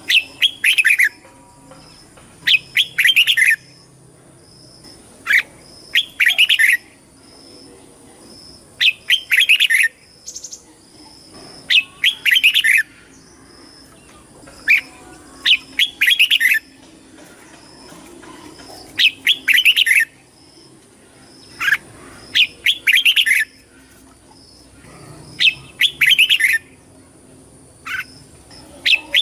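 Red-whiskered bulbul singing: short, brisk phrases of chirpy warbled notes, repeated about every two to three seconds, about a dozen phrases in all.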